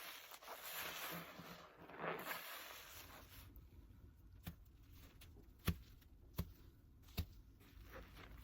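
Sponge loaded with foamy paste being squeezed: soft wet squelching through the first couple of seconds, then a few sharp clicks about a second apart.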